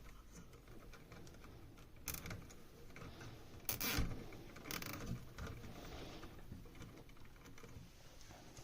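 Faint handling noises: a few scattered clicks and knocks, the loudest about four seconds in.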